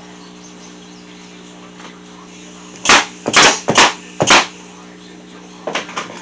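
Staple gun firing staples into wood, four sharp shots about half a second apart, followed by two fainter knocks near the end.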